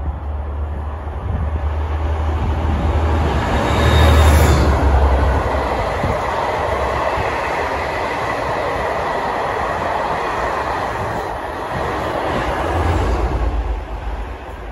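Locomotive-hauled passenger train passing at speed: a loud rush and low rumble, loudest about four seconds in as the locomotive goes by, then a steady rumble and rattle of the coach wheels on the rails. It swells briefly again near the end and drops away as the train clears.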